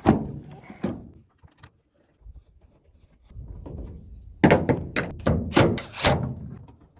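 Knocks and clanks of hand work on a pickup tailgate's striker bolts: a knock at the start and another about a second in, then a quick run of loud sharp clanks between about four and a half and six seconds in.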